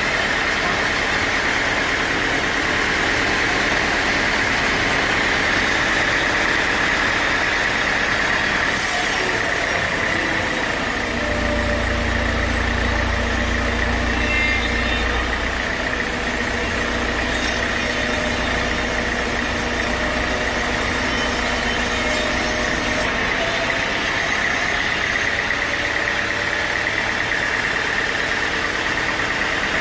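Sawmill machinery running steadily with a constant high whine. From about a third of the way in, a deep rumble and a hiss join it for roughly twelve seconds, then drop away.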